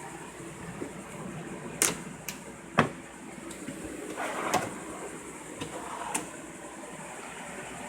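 Cabinet doors and their latches being opened and closed: a handful of sharp clicks and knocks with a brief scrape in the middle, over a steady low hum.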